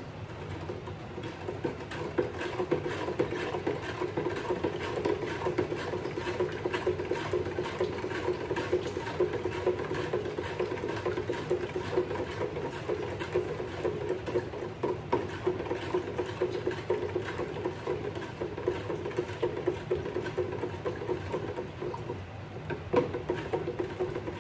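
A spoon stirring sweetened Kool-Aid in a large plastic drink jug: steady, rapid swishing of the liquid with quick taps of the spoon against the plastic, working loose sugar settled at the bottom.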